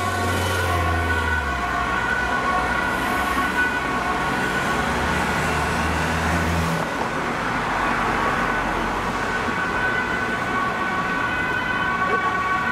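Ambulance siren sounding on an emergency run, alternating between two pitches, over road traffic noise. A low vehicle rumble runs under it for about the first seven seconds.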